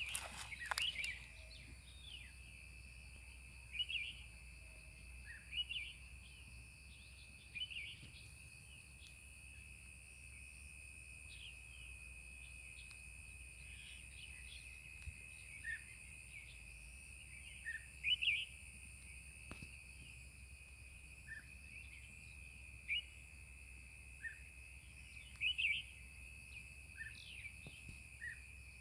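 Steady, high-pitched insect drone with short bird chirps every couple of seconds; the loudest chirps come about two-thirds of the way through and near the end. A few sharp clicks sound right at the start.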